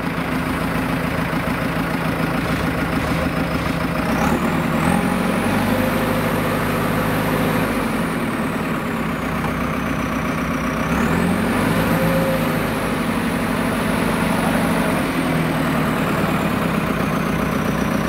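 2006 JCB 3CX backhoe loader's diesel engine running steadily. Its speed picks up about four seconds in and again about twelve seconds in, each time with a high whine that climbs and then slowly falls away.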